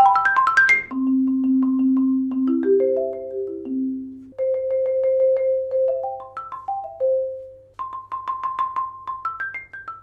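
Marimba One marimba played with 0gravity Percussion Jupiter 2 medium-hard mallets. A fast, loud rising run ends about a second in. After it come soft rolled notes, held first in the middle, then low, then middle and high ranges, with short rising arpeggios between them.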